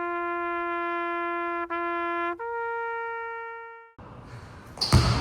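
Edited-in trumpet-like sound effect: two notes at the same pitch, then a longer, higher note that fades away. Basketball court noise cuts back in near the end.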